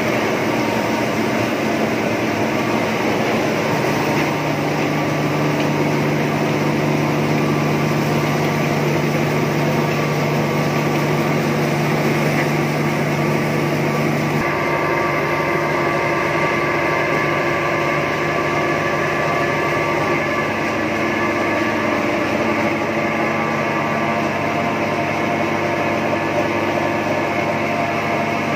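Small rice milling plant running, driven by its 45 kW electric motor through a flat belt: a loud, steady machine hum and rattle with steady tones, freshly started and up to speed. The mix of tones shifts about halfway through as the motor and belt drive come closer.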